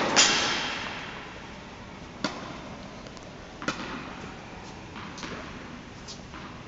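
Indoor tennis rally: sharp pops of the racket hitting the ball and of the ball bouncing, each ringing on with an echo in the large hall. The loudest strike comes at the very start, with smaller pops about two, three and a half, and five seconds in.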